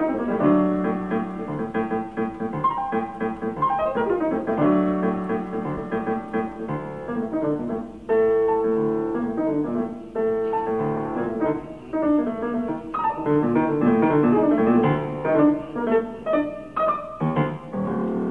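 Solo jazz piano played in a fast, ornate style, with quick runs sweeping down the keyboard near the start and again about four seconds in, over dense chords.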